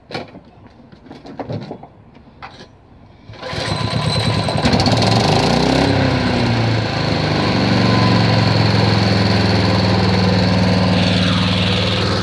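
2014 Power Devil lawn mower's 3.5-horsepower overhead-valve petrol engine catching about three seconds in, after a few short knocks and rattles, then running steadily.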